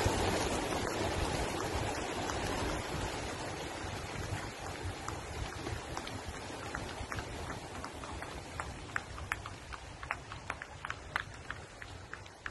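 Thousands of racing pigeons taking off together from release crates: a dense rush of wingbeats like heavy rain that fades steadily as the flock flies away. Scattered sharp clicks come through from about halfway in.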